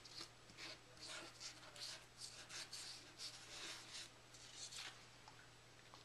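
Faint scratchy strokes of something being rubbed across paper, a few each second, dying away about five seconds in.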